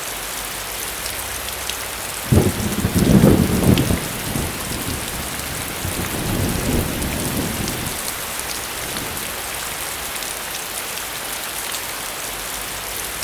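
Steady rain falling, with a roll of thunder that starts suddenly about two seconds in and a weaker rumble of thunder a few seconds later.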